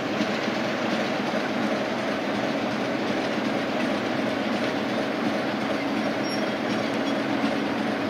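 Class 33 diesel locomotive's Sulzer engine running steadily at low revs, a continuous even hum with a broad mechanical rumble.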